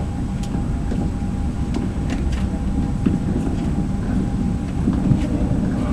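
Steady low rumble with a faint steady hum and a few light clicks.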